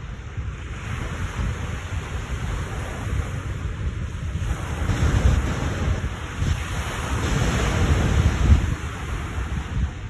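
Lake Ontario waves crashing on the shore, with wind buffeting the microphone in a low rumble. The surf swells louder about halfway through and again near the end.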